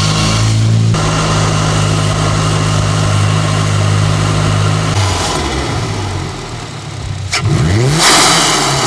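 2022 Subaru WRX's turbocharged 2.4-litre flat-four running through a newly fitted titanium cold-air intake with an open K&N cone filter. It is held at a steady speed for a few seconds, then revved up and down in short blips, with a single sharp click and a loud rush of noise as the revs climb near the end.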